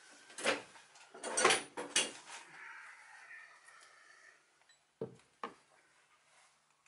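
Metal hand tools clattering as a hammer and a steel pin punch are picked up and set down on the workbench. A handful of clanks with a short metallic ring come in the first two seconds, then two sharp clicks about five seconds in.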